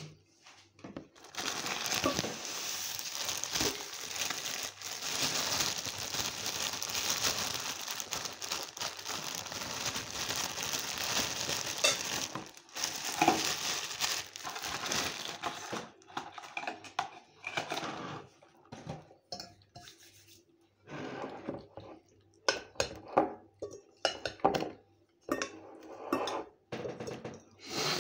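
A long stretch of steady crinkling, rustling noise for roughly the first half. It gives way to separate sharp clicks and scrapes of a metal fork on a ceramic plate, several a second, as eating resumes.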